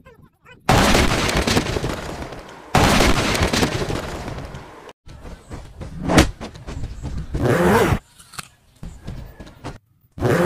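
Two sudden loud booms, each dying away over about two seconds, then a sharp crack and a shorter burst of noise: explosion-style sound effects added to a VFX edit.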